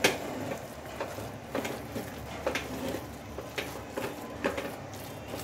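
Spatula scraping and knocking against a steel pan while stirring a thick shredded chicken and cabbage filling, with sharp clacks about once a second and a short metallic ring after each.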